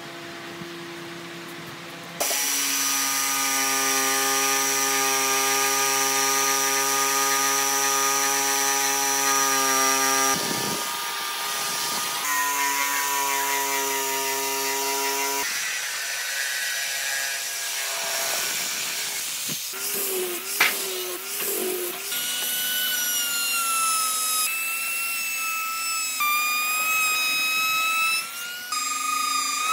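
A Makita jigsaw running and cutting through a hardwood board, with two short pauses. In the last third a small router runs with a higher, steady whine.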